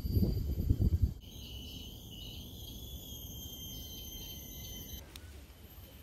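Wind buffeting the microphone as a loud low rumble for about the first second, then a steady high-pitched insect drone of several held tones from the rainforest canopy, which cuts off suddenly about five seconds in.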